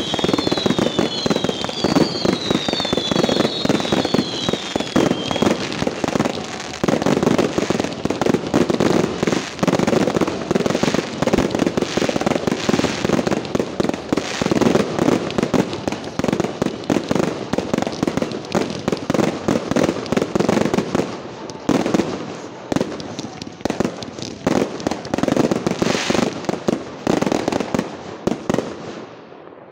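Fireworks display at close range: a rapid, continuous barrage of bangs and crackling. In the first five seconds or so a string of short, wavering whistles rides over it. The barrage thins out just before the end.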